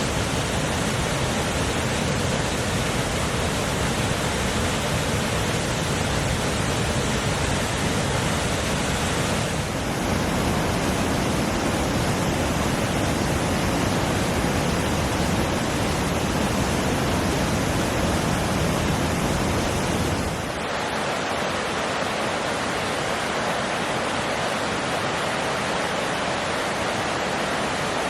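Mountain creek water rushing steadily over rocks, a dense even hiss and rumble. Its tone shifts twice, about a third and two-thirds of the way in, ending lighter with less low rumble.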